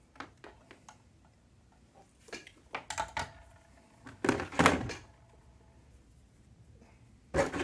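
Knocks and clatter of soldering tools and parts being handled on a workbench: a few light clicks, a run of sharper knocks, then a louder clatter about halfway through, and one more knock near the end.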